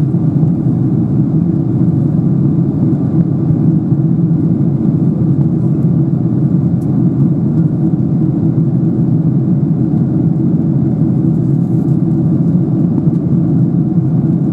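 Steady in-flight cabin noise of a Boeing 777-300ER, heard inside the cabin: the low drone of its GE90 turbofan engines mixed with the rush of air past the fuselage. It holds an even level, with no change in pitch or loudness.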